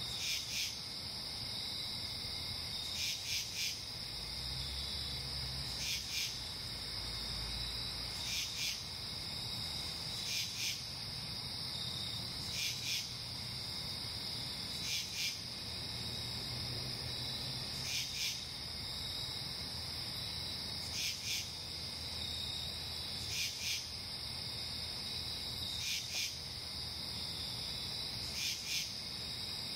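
Night insect chorus: a steady high cricket trill, with louder rasping insect pulses, mostly in pairs, every two to three seconds.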